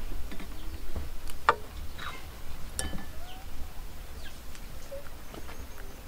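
Metal spoon clinking and scraping against a ceramic bowl and dish while thick lotus seed sweet soup and coconut milk are spooned in: a few separate light clinks spread across several seconds.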